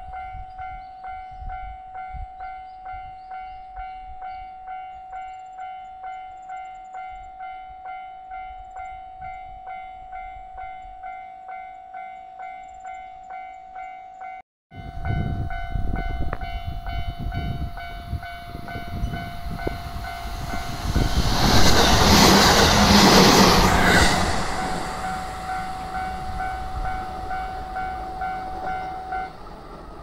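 Japanese level-crossing warning bell ringing with rapid, evenly repeated electronic dings. About halfway through, a train approaches and passes close by, with a rising rumble and rush of wheel and body noise that is loudest for a few seconds before fading. The bell stops shortly before the end.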